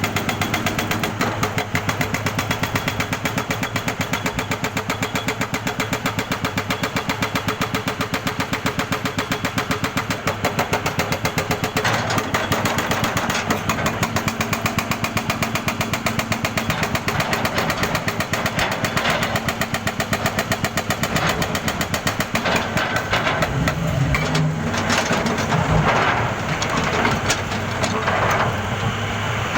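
Jackhammer hammering in a fast, steady rapid-fire rhythm, with a steady engine drone underneath.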